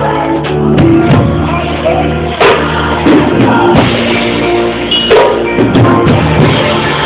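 Praise music with a drum kit, other instruments and singing, loud and continuous, with sharp drum hits standing out now and then.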